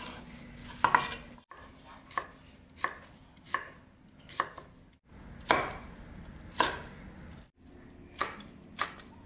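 Kitchen knife chopping food on a wooden cutting board: about ten separate, unhurried strokes, spaced unevenly.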